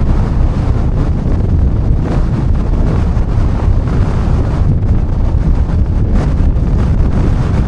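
Gale-force wind buffeting the microphone: a loud, steady, low rumbling roar of wind noise.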